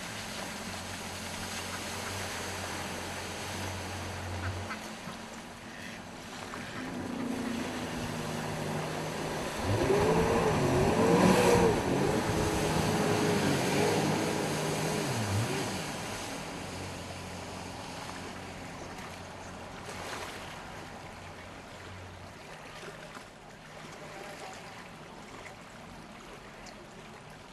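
Jet ski engine running, its pitch rising and falling. It is loudest between about ten and sixteen seconds in.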